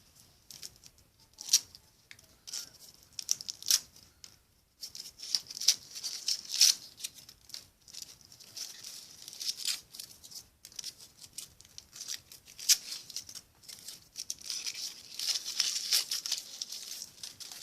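Thin foil wrapper of a Kinder Surprise chocolate egg crinkling and tearing as it is unwrapped by hand: irregular rustles and sharp crackles, busier from about five seconds in.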